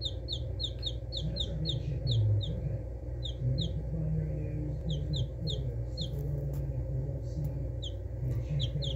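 Baby chicks peeping: short, high, falling peeps in a quick run of about four a second over the first two seconds, then in shorter runs with pauses between. A low steady rumble runs underneath and swells briefly about two seconds in.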